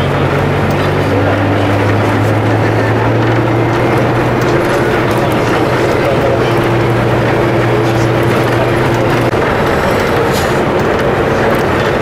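Vehicle driving on a gravel dirt road: engine hum and tyre noise on loose stones, with scattered knocks and rattles. The engine note shifts a little about a second in and fades near the end.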